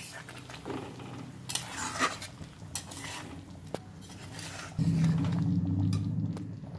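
Steel ladle clinking and scraping against an aluminium kadai while stirring thick, simmering gravy. About five seconds in, a louder steady low rumble sets in.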